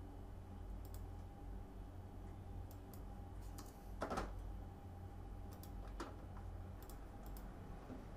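Scattered single clicks of a computer mouse and keyboard, about eight in all, with one louder and longer one about four seconds in. A steady low electrical hum runs underneath.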